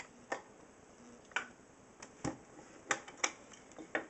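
Sharp plastic clicks and knocks, about six in all spread unevenly across the few seconds, as the battery compartment cover on the back of a Kenner Baby Alive doll is unclipped and handled.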